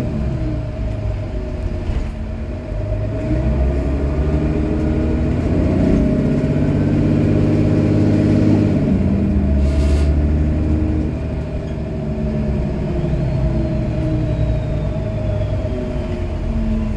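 Mercedes-Benz Citaro city bus engine and automatic gearbox heard from inside the passenger cabin while the bus accelerates. The engine note climbs and drops back at each gear change, over a steady whine. There is a single sharp click about ten seconds in.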